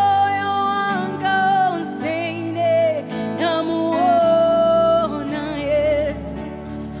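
A woman singing a gospel worship song over keyboard chords, holding long notes with vibrato. Her voice drops out shortly before the end, leaving the keyboard.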